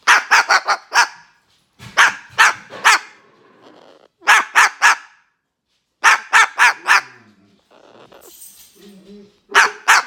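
Umbrella cockatoo imitating a dog's bark: sharp barks in quick bursts of three to five, about five bursts, with a quieter lull near the end.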